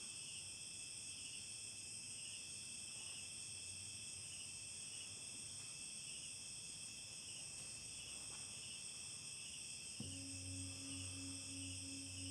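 Steady chirring of crickets, a high trill pulsing about twice a second. About ten seconds in, a large metal singing bowl begins to sound with a low, wavering hum.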